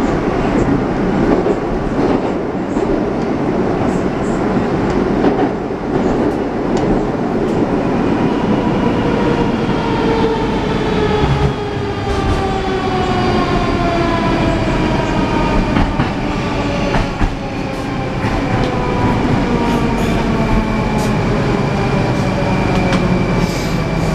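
Rusich 81-740/741 metro train heard from inside the car, running with wheel clatter and then braking into a station. From about a third of the way in, the traction drive's electric whine falls steadily in pitch as the train slows to a stop.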